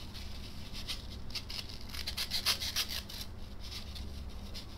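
A cutter blade shaving polyurethane foam by hand, a run of short scraping strokes in the first three seconds, then quieter scraping.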